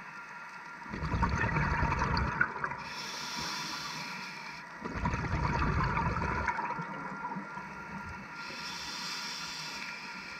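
A scuba diver's regulator breathing cycle heard underwater: two long bubbling exhalations out of the exhaust, about a second in and about five seconds in, each followed by the higher, quieter hiss of an inhalation through the demand valve.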